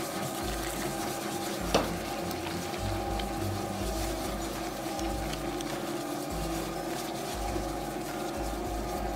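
Electric dough mixer running steadily, its hook kneading a soft yeast dough with a steady motor hum and an uneven low thumping of the dough in the bowl; one short knock about two seconds in.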